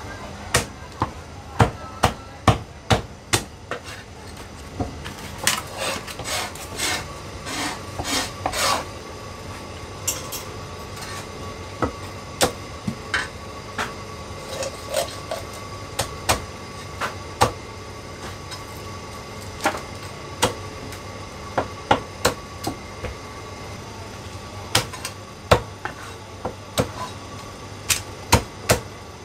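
Heavy Chinese cleaver chopping cooked chicken on a thick round wooden chopping block: sharp wooden chops, in quick runs and single strokes, densest a few seconds in.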